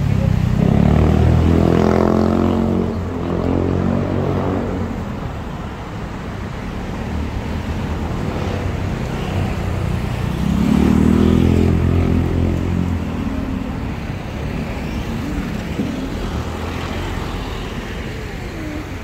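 Street traffic: motor vehicles passing close by. One engine rises in pitch as it goes by at the start, and a second vehicle passes about ten seconds in, over a steady hum of traffic.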